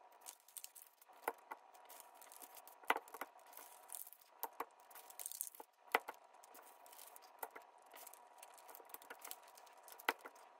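Clear tape being pulled and torn from a desk dispenser, with paper crinkling as strips of tape are pressed over coins on a paper airplane. It comes as faint, scattered clicks and crinkles, roughly one every second or two.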